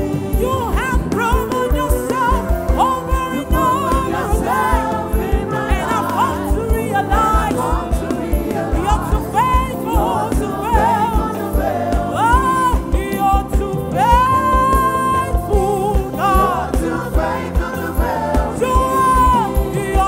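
Live gospel praise music: several singers with an electric bass guitar and a steady low beat.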